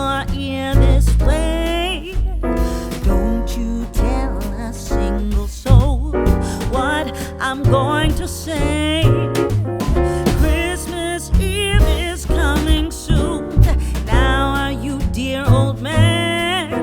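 Background music: a song with a sung vocal over piano, bass and a steady beat.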